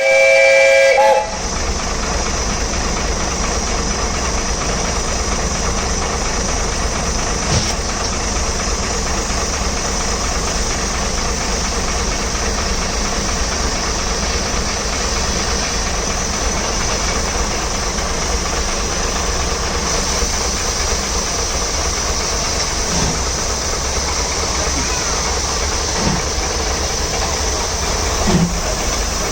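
A steam locomotive's whistle blows loudly for about a second, then the steam train runs steadily along the line with a constant rumble and hiss. A few short knocks come near the end.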